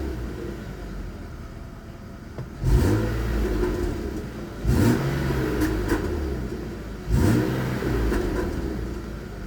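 BMW E36 328i's 2.8-litre M52B28 straight-six on the stock exhaust, revved three times, each rev rising quickly and then falling back more slowly.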